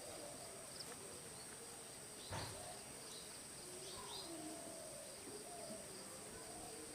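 Steady high-pitched chirring of insects, with faint distant voices or calls underneath and a single sharp knock about two seconds in.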